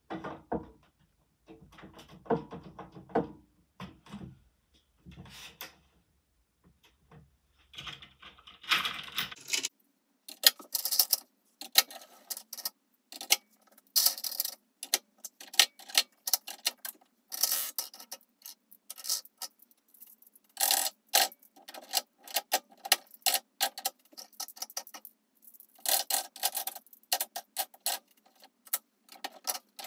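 Lego candy machine mechanism clicking and rattling: plastic parts knocking, then from about ten seconds in quick irregular runs of sharp clicks and clatter with short pauses.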